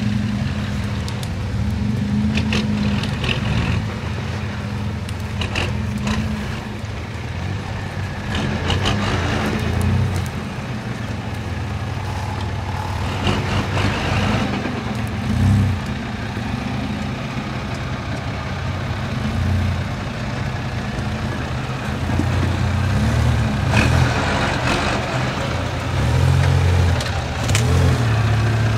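Engine of a lifted, mud-tyred off-road hatchback revving up and down again and again under load as it crawls through soft ground and onto rocks, with scattered knocks and scrapes.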